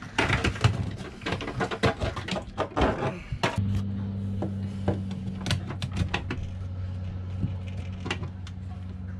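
Quick clicks, knocks and scrapes of a live mud crab being handled with metal tongs in a plastic esky. About three and a half seconds in, a steady low hum starts and carries on under fewer clicks.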